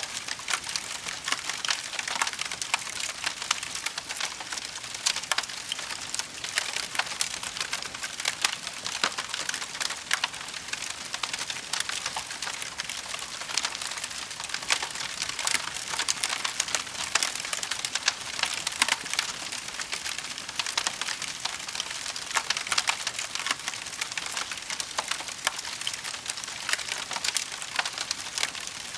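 Wood fire in a fireplace crackling: a dense, unbroken run of small pops and snaps over a soft hiss.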